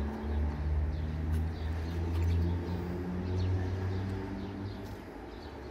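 A low droning hum that fades near the end, with faint bird chirps over it.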